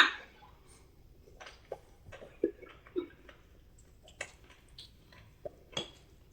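Quiet eating sounds: scattered faint clicks and taps of cutlery, with chewing of crunchy green papaya salad, after a short louder noise right at the start.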